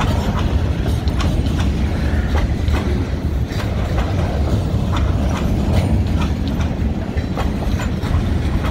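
Empty log cars of a freight train rolling past at a grade crossing: a steady low rumble of steel wheels on rail, with frequent sharp clacks as the wheels cross rail joints.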